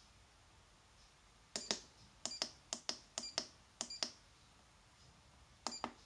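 Push buttons on a Bright Tech Developments bus destination-display keypad controller clicking as keys are pressed and released, each press a quick double click. Five presses come in quick succession from about a second and a half in, then one more near the end.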